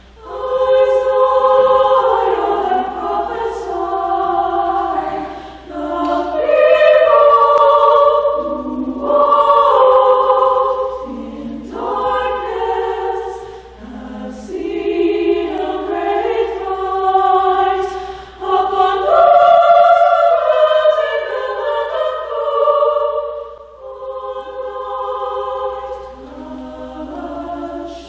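Mixed chamber choir singing unaccompanied, holding sustained chords in phrases that swell and fade, with brief breaks between phrases.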